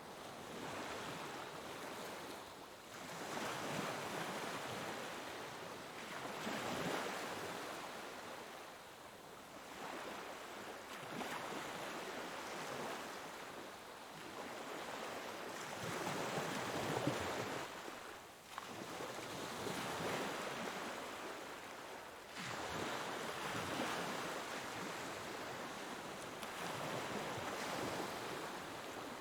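Ocean waves breaking and washing on a shore, the surf rising and falling in repeated swells every few seconds.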